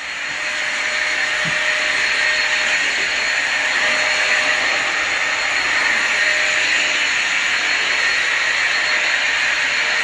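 Vacuum cleaner running steadily.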